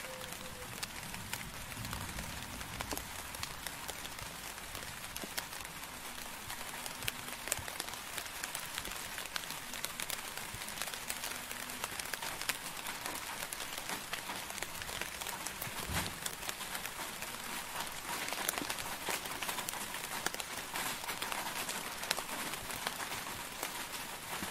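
Steady rain falling, a dense even hiss with many individual drops ticking close by. A single brief low thud sounds about two-thirds of the way through.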